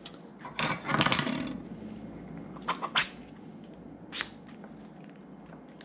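A 3D-printed plastic adapter being worked onto a motor's casing by hand: a scraping rub about a second in, then a few sharp clicks and taps.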